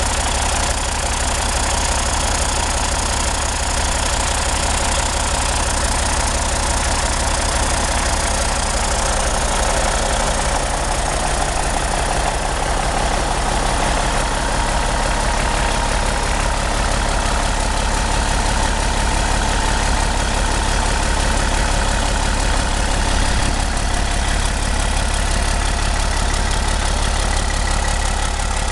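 Caterpillar C15 inline-six diesel engine running steadily at an even speed, without revving.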